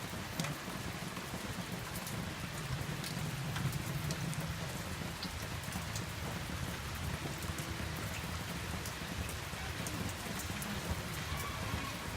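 Steady rain falling, with scattered sharp drop ticks over a continuous low rumble.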